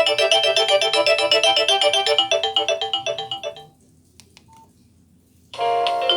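Nokia 6085 mobile phone ringtones playing through the phone's loudspeaker. A fast melody of quick repeated notes fades out at about three and a half seconds, followed by a short quiet gap with a few faint clicks. The next ringtone then starts suddenly near the end.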